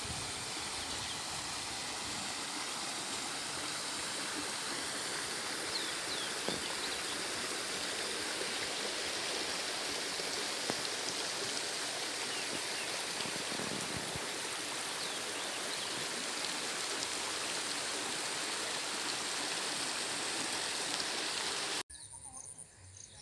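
Steady rush of flowing water, with a few faint bird chirps over it. Near the end it cuts off abruptly to a much quieter background with a steady high tone.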